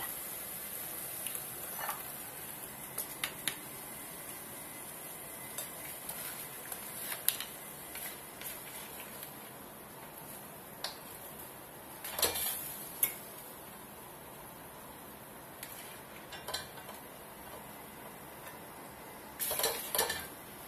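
A spatula scraping and clinking against a wok as stir-fried vegetables are scooped out and served into a bowl: scattered scrapes and taps, with a louder run of clatter about twelve seconds in and again near the end.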